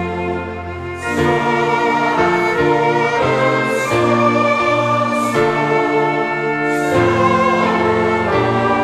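Choral music: a choir singing a slow piece in sustained chords that change about once a second.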